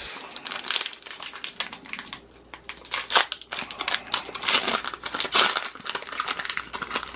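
Foil Pokémon booster pack wrapper crinkling as it is torn open and the cards are pulled out: a dense run of crackles, louder about three seconds in and again after five seconds.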